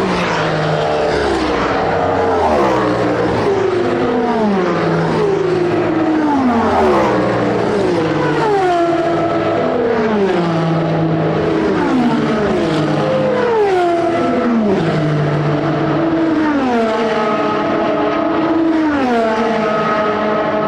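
Endurance race cars passing one after another at speed, with several often overlapping. Each engine note drops in pitch as the car goes by.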